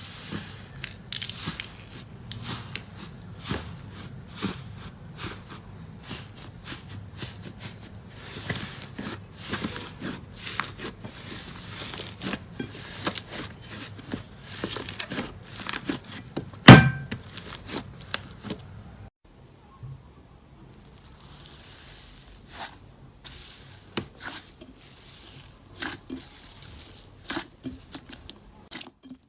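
Slime being squished and stretched by hand, with a dense run of small crackles and pops, and one much louder sharp pop about two-thirds of the way through.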